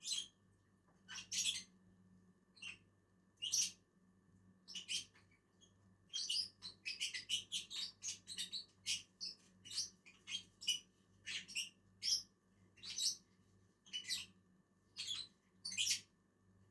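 Lovebirds chirping: short, high chirps about once a second, coming thick and fast for a few seconds in the middle.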